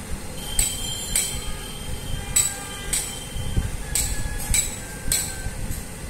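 Sharp metallic clinks of metal striking metal, about ten at irregular intervals, some ringing briefly, over the low steady rumble of a split air-conditioner outdoor unit running.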